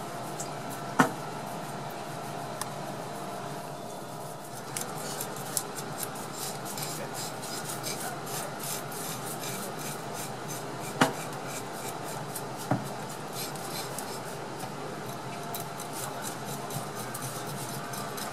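A kitchen knife scraping along the skin of a small whole fish on a cutting board, in many quick rasping strokes. A few sharp knocks stand out, about a second in and twice near the eleven-to-thirteen-second mark.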